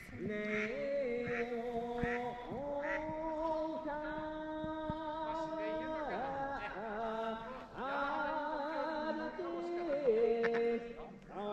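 A man singing a slow Japanese folk song, holding long wavering notes and sliding between them in an ornamented style. This is typical of the boatman's song on the Geibikei gorge boat ride.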